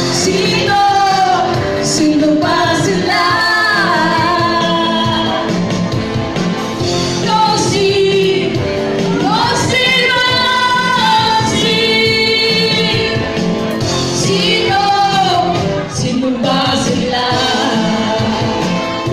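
Two women singing a duet into handheld microphones over accompanying music.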